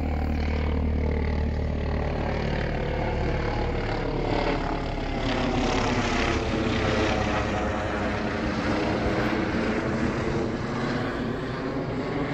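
E-flite Radian model glider's electric motor and propeller whining in flight, the pitch drifting slowly up and down. Wind rumbles on the microphone for the first few seconds.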